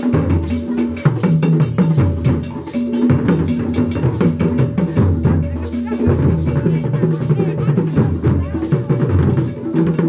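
Drum-led music: lively percussion playing a fast, steady beat with low pitched drum notes throughout.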